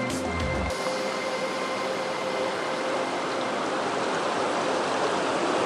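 Steady rush of fast river water running over rocks in rapids. Background music stops a little under a second in, leaving only the water.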